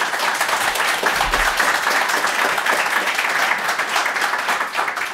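Audience applauding steadily, a dense mass of clapping hands.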